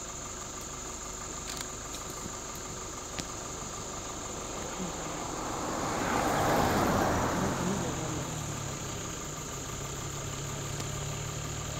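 Vehicle engine idling steadily, with a swell of passing-vehicle noise that rises to a peak about six seconds in and fades away.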